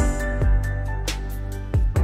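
Background music: sustained notes over a low kick-drum beat.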